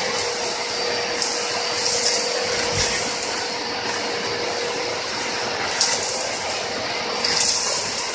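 Two-motor, 2.2 kW industrial vacuum cleaner running steadily: a loud rushing hiss with a steady underlying tone, its upper hiss surging briefly a few times.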